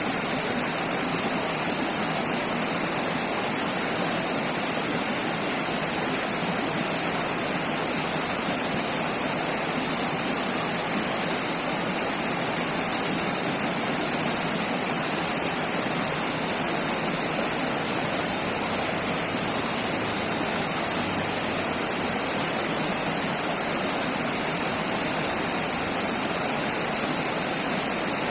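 River water rushing steadily, a constant even flow with no breaks.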